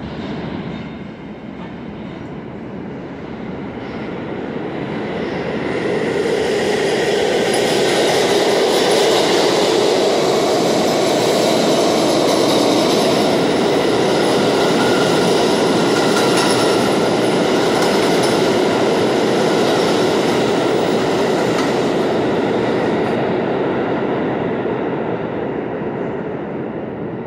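New York City subway express train running through the station on the express track without stopping. Its noise builds over the first several seconds, stays loud through the middle and fades near the end.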